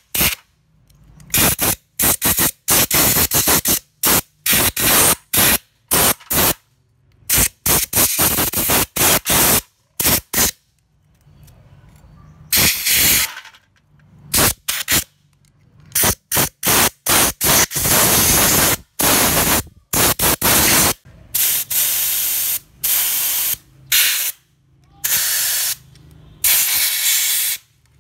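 Pressurised spray hissing in many short, abrupt bursts, from a fraction of a second up to about two seconds each, with a brief pause a little before halfway.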